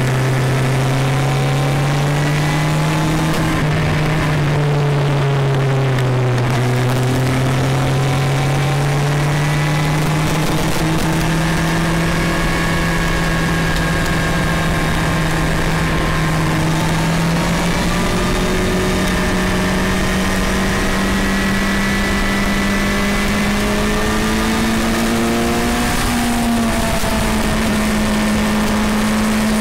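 Vehicle engine running under load on an uphill climb, its pitch dipping briefly about six seconds in and then rising slowly and steadily, with another small dip near the end.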